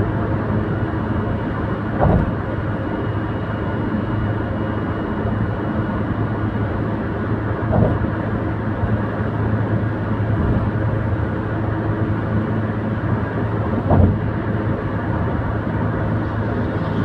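Steady tyre and engine noise heard from inside a car cruising on a highway. Three brief thumps, about six seconds apart, come from the wheels crossing joints in the elevated roadway.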